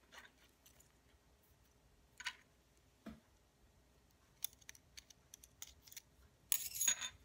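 Small plastic clicks and scrapes as a thin screwdriver pries and pushes at a Holy Stone HS170 drone's plastic motor housing to get the motor out, with a longer, louder scraping patch near the end.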